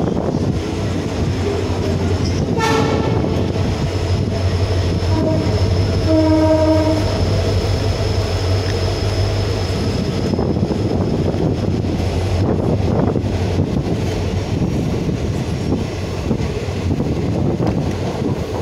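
Passenger express train running at speed, carriage and wheel noise heard from an open coach doorway, with a steady low hum underneath. A horn sounds briefly about three seconds in and again for about a second a few seconds later.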